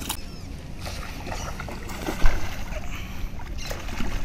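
Close handling noise: light clicks and rustles over a low steady rumble, with one sharp thump about two seconds in, from an angler rebaiting a fishing hook.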